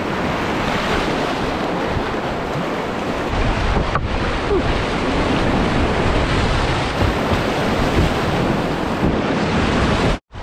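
Whitewater rapids rushing and splashing around a kayak's bow, heard close up from a camera on the boat's deck. The sound cuts out abruptly for a moment near the end.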